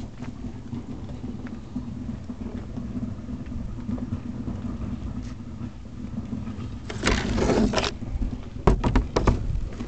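An engine idling steadily. About seven seconds in comes a burst of rustling noise lasting about a second, then a few sharp knocks near the end.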